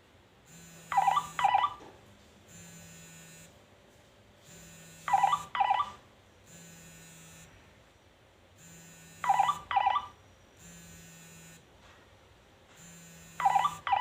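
Nokia E63 ringtone: a pair of quick electronic beeps repeating about every four seconds. Between and under them a low buzz comes on for about a second every two seconds, the phone's vibrate alert running with the ring.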